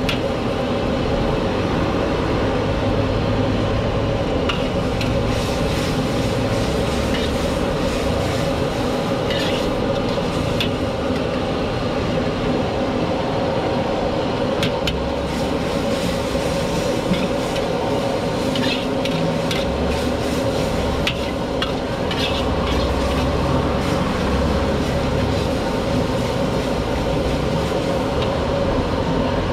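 Steady rush of a gas wok burner under udon noodles cooking in sauce in a carbon-steel wok. Every few seconds a metal ladle or spatula clicks and scrapes against the wok as the noodles are stirred.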